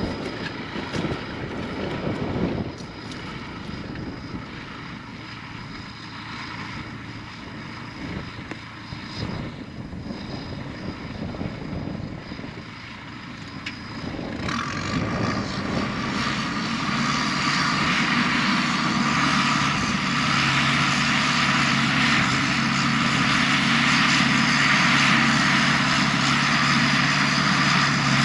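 Diesel engine of heavy earthmoving equipment running under work. About halfway through it revs up and grows louder, with more clatter and hiss as it takes on load.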